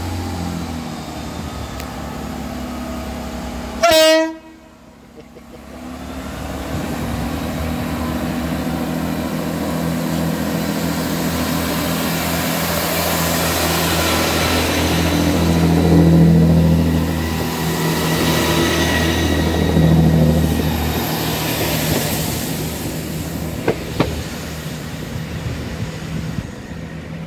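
Class 166 diesel multiple unit departing: a short horn blast about four seconds in, then its diesel engines pulling away. The engine drone builds as the train passes, then fades as it runs off down the line.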